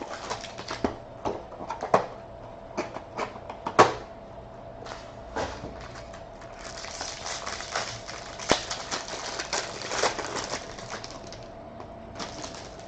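Baseball card packs being opened and handled: scattered sharp clicks and taps, then from about six seconds in a stretch of crinkling, tearing wrapper rustle.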